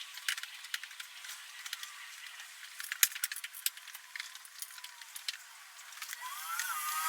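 Scattered light clicks and clinks of metal hardware being handled while fitting a tonneau cover onto a pickup bed. Near the end a rising whine with a growing rush joins in.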